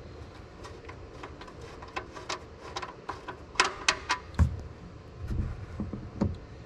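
Irregular sharp clicks and taps as the oil pan drain plug is worked loose by hand, with a few dull low knocks in the second half.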